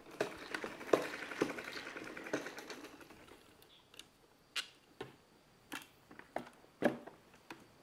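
Spin mop being wrung in its bucket: the handle pumped down to spin the mop head in the basket, a rapid whirring rattle with a clack at each push for about the first three seconds. Then a few separate sharp plastic knocks as the mop is handled.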